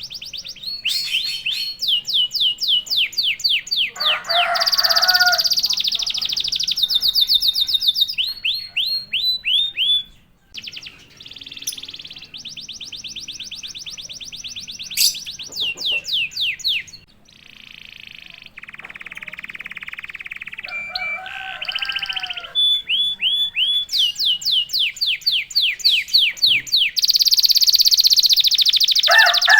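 Domestic canary singing hard: fast trills of rapidly repeated high notes and buzzy rolls in phrases of a few seconds each, with short pauses between them and a few lower, bending notes among them.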